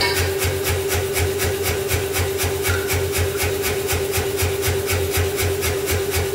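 Self-contained pneumatic power hammer running idle: a steady motor hum with the compressor pulsing evenly, about four times a second.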